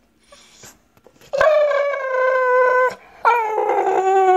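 American Bully dog howling to get its owner to play: two long drawn-out howls, each sliding slightly down in pitch, the second starting about three seconds in.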